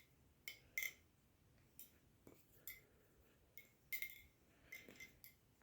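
Balisong (butterfly knife) being flipped: faint, irregular metallic clicks and clacks of the handles and latch, about a dozen over a few seconds, some with a short ring.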